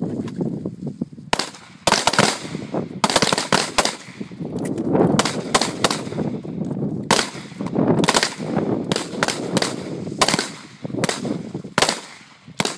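Several handguns firing at once along a firing line: sharp pistol shots in quick, uneven strings that overlap one another, starting about a second in.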